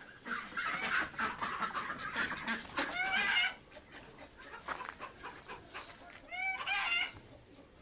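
Domestic chickens clucking in three short bouts of repeated calls.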